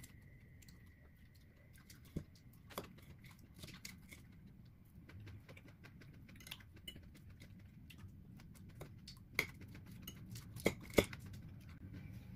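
Eating at a table: a metal fork clicking and scraping against a plate and a salad bowl, with soft chewing. A few sharper clinks come near the end.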